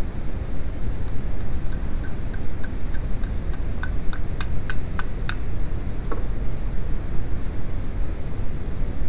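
Steady low rumbling background noise. Over it come about a dozen light ticks, roughly three a second, between about two and five seconds in, and one more a second later.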